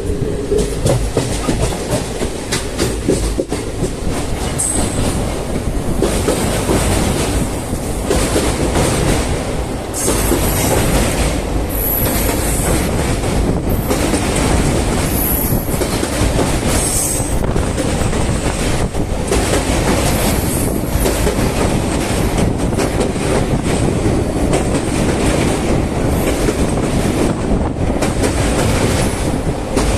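Passenger train running, its wheels clacking steadily over the rail joints, with a few brief high-pitched squeals in the middle.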